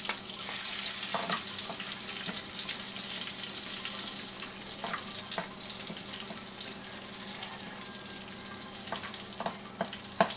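Minced garlic sizzling steadily in hot frying oil in a metal wok, with the scrape and clink of a metal ladle stirring it now and then and a sharper clink near the end.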